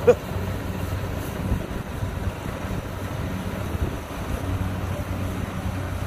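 Kubota DC70 combine harvester's diesel engine running steadily as it cuts lodged rice, a constant low hum heard from a distance, with wind buffeting the microphone. A brief knock comes right at the start.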